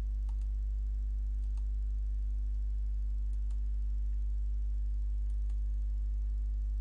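Steady low electrical hum, with a few faint, scattered clicks of a computer mouse.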